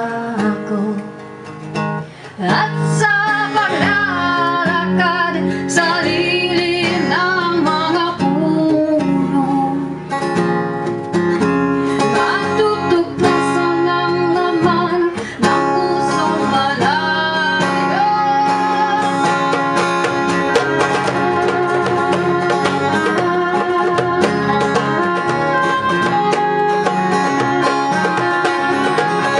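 Background music: a Filipino song with acoustic guitar and singing.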